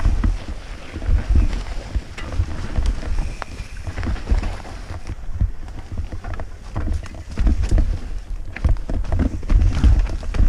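Mountain bike rolling down a rocky, leaf-covered trail, heard from a helmet camera: a low rumble of wind on the microphone with irregular knocks and rattles as the bike goes over stones.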